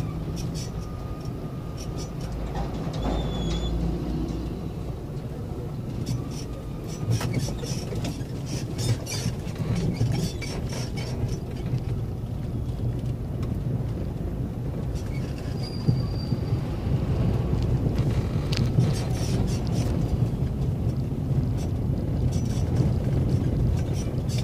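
Steady low rumble of a vehicle's engine and tyres, heard from inside its cabin on a rough road, with frequent rattling clicks and a couple of short high squeaks.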